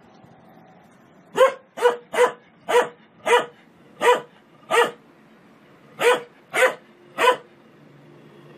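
A dog barking at a front-loading washing machine: ten short, sharp barks, a run of seven, a pause of about a second, then three more.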